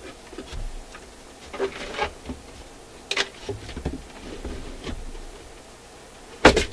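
Clicks, knocks and light rattles of a Marconi fold-out record player's changer deck being handled and set down into its cabinet, with a sharper knock near the end.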